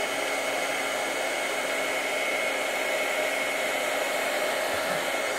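A Stampin' Up! heat tool (embossing heat gun) running steadily, an even blower hiss with a thin steady high whine, as it melts white embossing powder to a raised, shiny finish.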